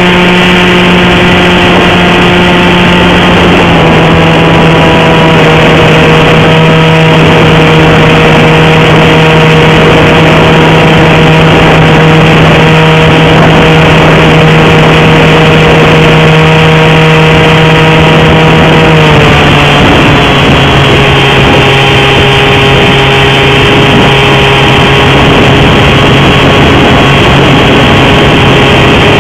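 Bixler II RC plane's electric brushless motor and pusher propeller running steadily at high throttle, a loud whine heard close up from a camera on the airframe. Its pitch drops slightly about three and a half seconds in and again around nineteen seconds as the motor slows.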